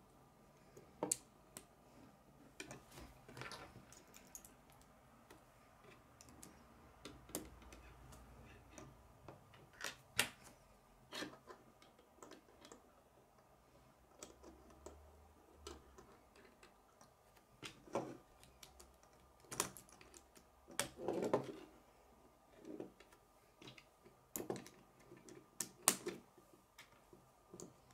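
Plastic K'nex pieces clicking and knocking as they are handled, fitted onto a rod and snapped together, with parts tapping a wooden tabletop. Irregular scattered clicks, with the loudest ones about two-thirds of the way through and near the end.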